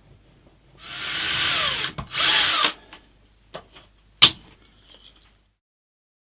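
Power drill run in two short bursts, its motor pitch falling as it slows, followed by a few light clicks and one sharp click.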